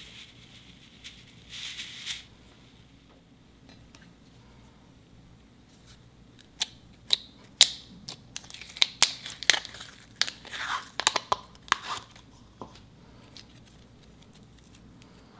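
Clear orange slime being pushed out of its plastic tub and pulled apart by hand, giving a dense run of sharp crackling pops and clicks through the middle stretch. A short soft hiss comes near the start.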